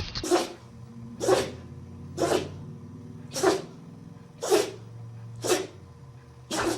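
A dog sneezing over and over: seven short, sharp sneezes about a second apart.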